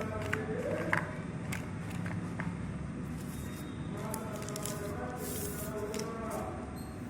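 Handling of a phone's retail box and packaging: scattered short clicks and a brief rustle over a steady low hum, with faint voice-like sounds in the background.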